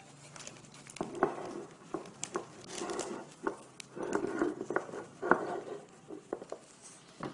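Rustling and light knocks as hands pick pieces of fruit out of a small ceramic bowl on a wooden table, with several sharp clicks.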